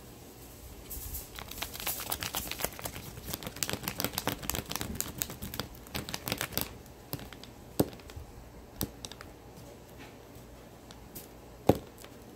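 Sheets of paper crinkling and rustling in quick crackles as they are handled, folded and pressed flat, thinning out after about six seconds. Two sharp knocks on the table, the louder one near the end.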